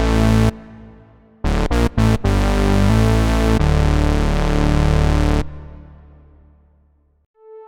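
Arturia Synthi V software synthesizer, an emulation of the EMS Synthi AKS, playing dense held chords. The first cuts off about half a second in, a stutter of short chopped stabs follows about two seconds in, then two held chords stop abruptly and fade to silence near the end.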